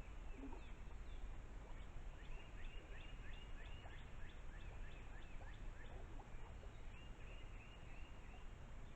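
An animal calling: a run of short, high chirping notes, about four a second, starting about two seconds in, and a second run near the end, over steady low background noise.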